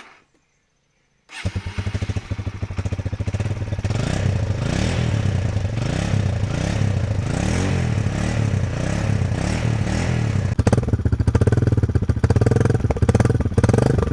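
Kawasaki KLX150's single-cylinder four-stroke engine starting to run about a second in, revved up and down repeatedly through its exhaust. It gets louder and rougher near the end.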